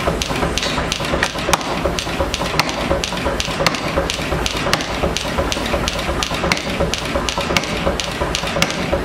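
Hand forging: rapid, evenly spaced hammer blows, several a second, ringing off red-hot steel on an anvil, over a steady rushing noise.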